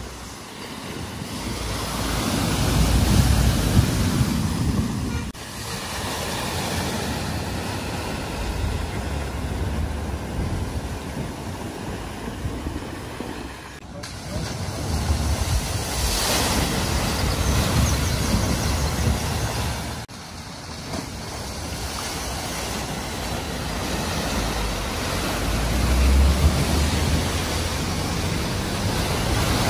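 Cars driving through deep floodwater at a ford, water splashing and surging off the wheels over the rumble of the engines, swelling as each car ploughs through. The sound breaks off abruptly a few times where one clip cuts to the next.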